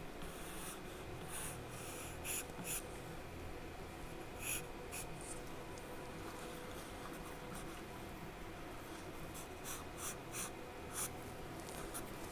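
Charcoal scratching on drawing paper in short, scattered strokes, pausing in the middle and coming quicker near the end.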